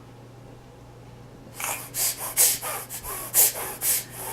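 An eight-month-old baby making funny breathy noises: a quick run of about eight short, noisy puffs of breath, starting about a second and a half in.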